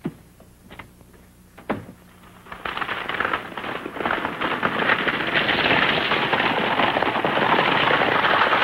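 Two horses galloping with a light buggy, hooves clattering and wheels rattling on a dirt road. The clatter sets in about two and a half seconds in and grows louder as the buggy approaches. Before it, two brief knocks.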